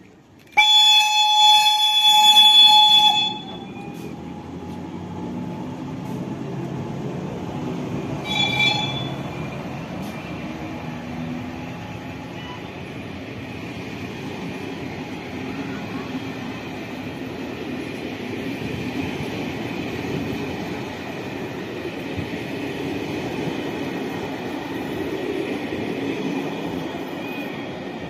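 Horn of the Czechoslovak E 499.0 'Bobina' electric locomotive: one loud blast of about two and a half seconds, then a shorter toot about eight seconds in. After that the locomotive and its train of vintage coaches roll past and away on the rails with a steady rumble.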